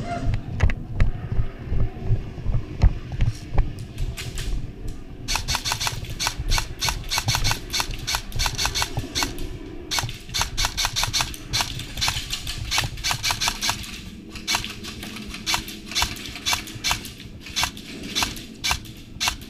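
Airsoft guns firing in an indoor close-quarters arena: a dense run of sharp, rapid clicking shots starts about five seconds in and thins to scattered shots in the last few seconds. Low thumps and knocks come before the shooting starts.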